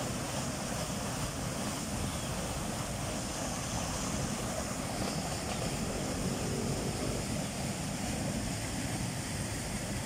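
Floodwater rushing down a swollen, muddy creek after heavy rain: a steady, loud rush of water.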